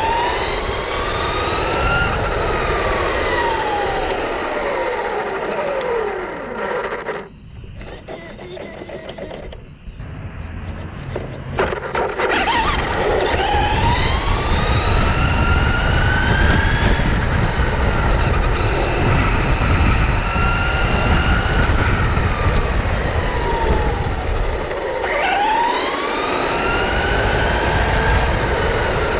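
Traxxas Rustler's brushless electric motor and drivetrain whining as the RC car speeds up and slows down: the pitch rises then falls three times, with a quieter lull in between, over rough tyre and wind noise.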